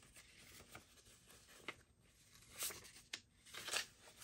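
Paper banknotes being handled and counted by hand: faint, brief rustles and flicks of bills, several scattered through the few seconds.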